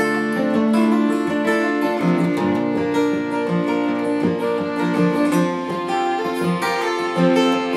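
Two acoustic guitars strumming and picking with a fiddle bowing a melody, an instrumental break between sung verses.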